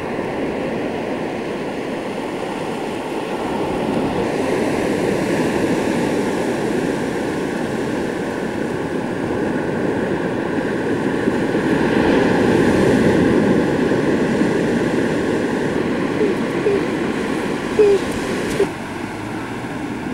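Ocean surf breaking and washing up a sandy beach, a steady rush that slowly swells and eases, loudest about two-thirds of the way through. A couple of brief knocks sound near the end.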